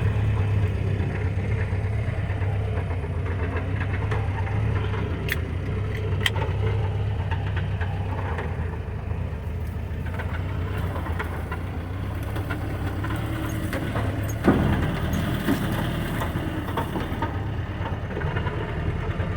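Old Jeep's engine running steadily at low speed while it drives over rough off-road ground, with scattered clicks and rattles and one sharp thump about three-quarters of the way through.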